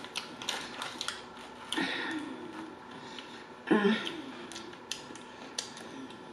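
A person chewing food close to the microphone: wet mouth clicks and lip smacks, with two louder smacking sounds about two seconds in and just before four seconds, the second as fingers are licked.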